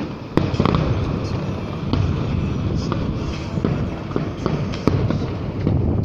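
Aerial fireworks bursting: a string of sharp bangs, roughly one a second, over a continuous low rumble.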